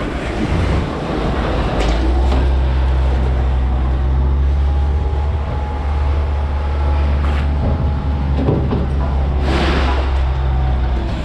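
A large engine running steadily with a deep hum, with a few short metallic knocks over it and a brief noisy burst near the end.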